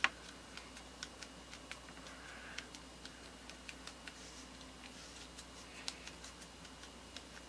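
Powder puff being pressed and patted against the face: faint, irregular soft clicks about one or two a second, with a sharper click at the very start.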